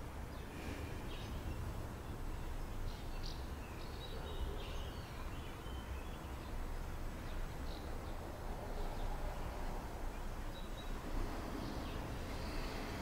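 Quiet room ambience with a low steady rumble and faint, scattered short chirps of birds.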